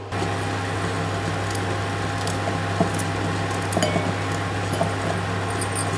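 Steady whir with an electrical hum underneath, and a few faint clicks and taps as a knife cuts ginger into a steel mixer-grinder jar.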